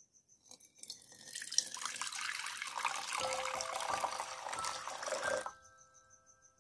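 Water poured from a plastic bottle into a bowl: a splashing stream that lasts about five seconds and stops suddenly.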